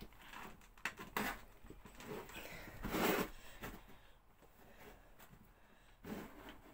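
Key-wind opener being turned on a sealed metal respirator tin, corned-beef-tin style: faint scraping and clicking as the tear strip winds, stiff and very hard to turn. A louder handling knock about three seconds in.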